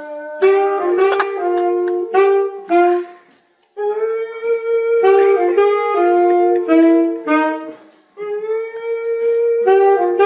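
Saxophone playing a melody of held and stepping notes in three phrases, with short breaks between them.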